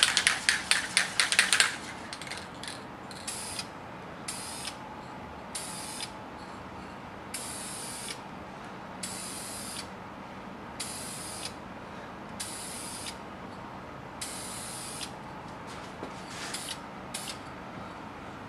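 Aerosol can of lacquer being shaken, its mixing ball rattling in quick clicks for the first couple of seconds, then about ten short bursts of spray hissing from the nozzle.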